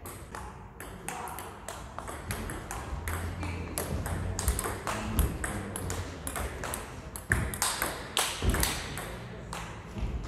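Table tennis ball clicking sharply off paddles and the table, many quick hits in a steady run through a rally.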